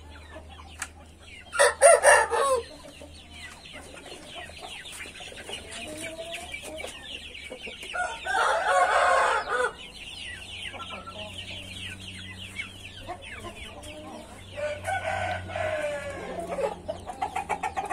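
Backyard roosters crowing a few times, loudest about two seconds in and again about eight seconds in, with chickens clucking and chirping between the crows.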